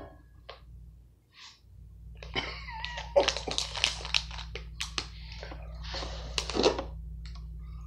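Plastic snack bag crinkling as it is handled, a rapid run of crackles that lasts several seconds.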